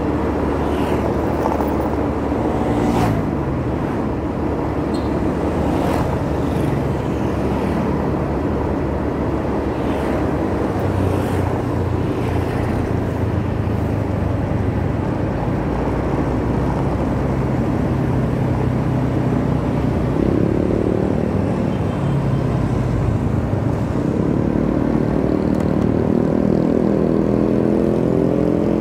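Motorcycle engine running while riding, with a steady rush of road and wind noise. The engine note rises as it speeds up about twenty seconds in, and again near the end.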